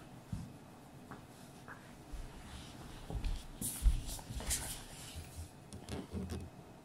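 Quiet rustling and a few dull thumps as a golden retriever shifts and rolls on a rug and a person gets up and moves off across the floor, busiest a few seconds in.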